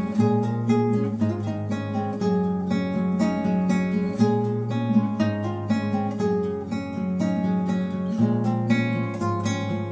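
Background music: acoustic guitar strummed and picked in a steady rhythm, its bass notes changing every couple of seconds.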